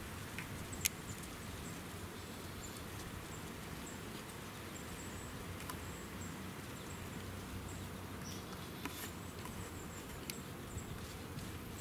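Woodland ambience: a steady low background hiss with faint, scattered high chirps and a few sharp clicks, the loudest just under a second in.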